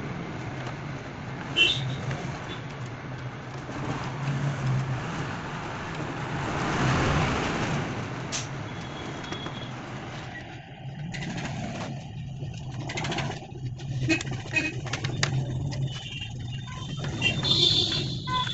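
Road traffic passing outside over a steady low hum, one vehicle swelling and fading a few seconds in. From about ten seconds in come small clicks and knocks of the toy rifle's plastic housing parts being handled and pressed together.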